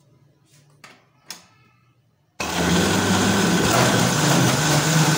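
Two short clicks, then an electric juicer-grinder motor switches on suddenly about two and a half seconds in and runs loud and steady, blending peeled oranges and water into pulp.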